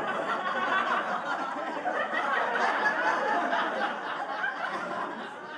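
Audience laughing together, already in full swing and slowly dying down near the end.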